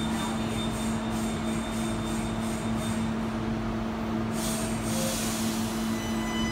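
An electric passenger train standing close by, giving off a steady equipment hum. A short hiss of air comes about four and a half seconds in.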